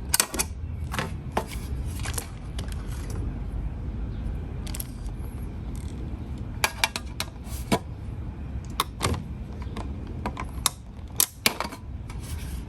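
Scattered sharp metallic clicks and clinks from a hand rivet tool and small pieces of tin sheet being handled, coming irregularly, with a cluster about seven seconds in and another near eleven seconds, over a steady low hum.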